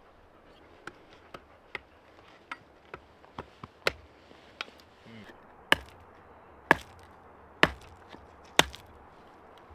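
Hatchet splitting firewood into kindling: several light taps of the blade into the wood, then four hard chops about a second apart in the second half.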